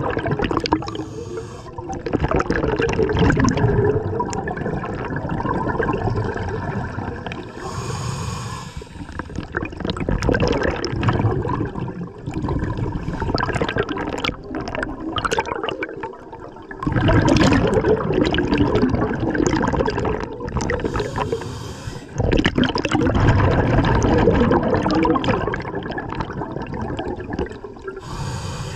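Scuba regulator breathing underwater: long surges of exhaled bubbles, with short hissing inhalations in between.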